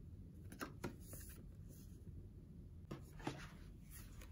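Quiet handling noises of a paper card and a laptop sleeve: a pair of light ticks a little under a second in, a soft rustle just after, and another pair of ticks about three seconds in.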